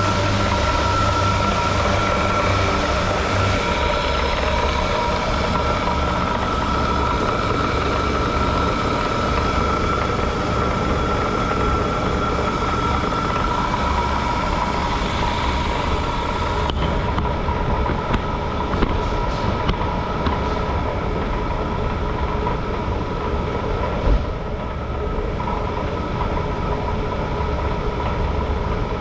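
Wells 8M horizontal band saw running under its 1/2 hp motor and belt drive: a steady mechanical hum with a whine that drops in pitch about halfway through. A few light clicks and a single knock come late on.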